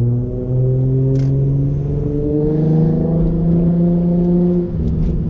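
Infiniti G35's VQ35 V6 engine pulling under throttle, heard from inside the cabin. Its pitch climbs slowly, dips briefly about half a second in, climbs again, and falls away near the end.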